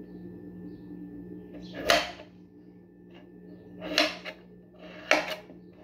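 Kitchen knife cutting through firm pumpkin and knocking down onto a metal cutting board: a few sharp knocks, about two seconds in, four seconds in and twice a little after five seconds.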